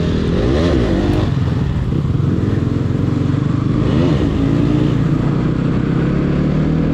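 Bajaj Pulsar NS200's single-cylinder engine running under way, its pitch swelling up and back down about half a second to a second in and again about four seconds in, over a steady rush of noise.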